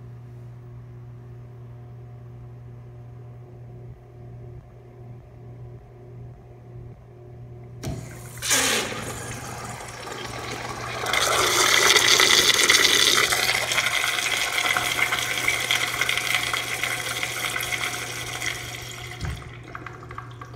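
Kohler urinal flushed by its chrome flushometer valve. About eight seconds in the valve opens with a sudden rush, and water runs loudly through the bowl for several seconds, tapers off, and ends with a low thump.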